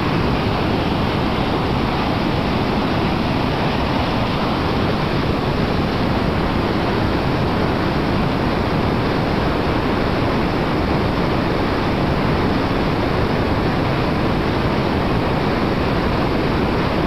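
River rapids at high water rushing steadily, a constant, even roar of whitewater.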